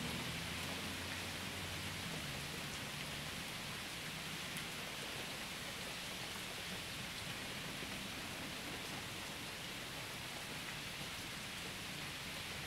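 Steady rain falling, an even hiss with no letup. A low rumble fades out over the first couple of seconds.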